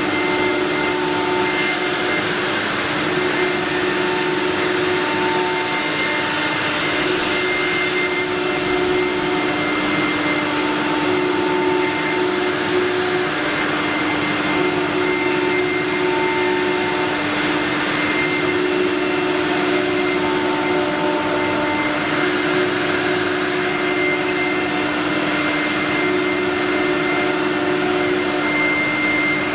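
Four-spindle CNC wood router running, its spindles giving a steady whine over a constant rushing noise, with a fainter tone that comes and goes every few seconds as it cuts.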